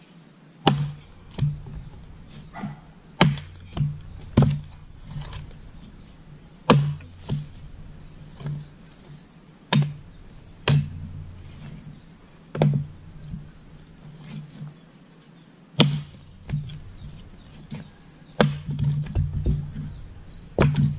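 Axe chopping firewood: about twenty sharp strikes on a log, often in quick runs of two or three a second, with a pause in the middle. The wood is tough and fibrous, so it takes many blows to split.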